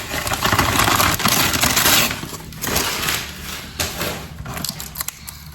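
Packing material rustling and crinkling as new canisters are unwrapped, dense for about two seconds, then quieter handling with scattered small clicks and knocks.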